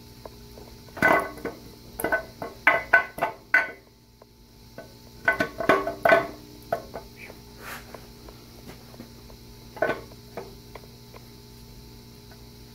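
Metal clinks and knocks as a greased camshaft is worked into the cam bearings of a Ford 7.3 Powerstroke diesel block. They come in quick clusters of taps: one about a second in, a run between two and four seconds in, another around five to six seconds in, and a single knock near ten seconds.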